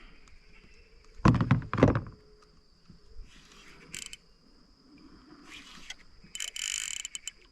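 Steady high-pitched insect buzz. A loud brief noise burst comes about a second in, and several shorter hissing bursts come in the second half.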